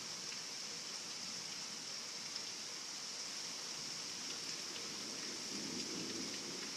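Heavy rain pouring steadily, with faint ticks of single drops landing close by; a brief low swell comes in near the end.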